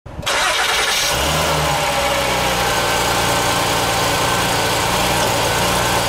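A car engine starting and then idling steadily, settling into a low, even hum about a second in.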